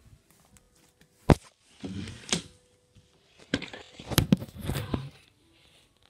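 Handling noise from a handheld phone camera: a sharp knock about a second in, then rustling and a run of bumps and scrapes as it is moved about and covered.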